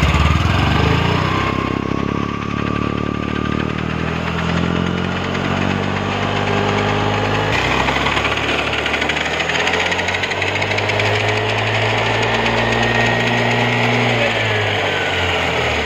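Honda Activa 6G scooter's single-cylinder engine running after start-up, its pitch rising and falling as it is revved, with a noise the mechanic traces to the pinion.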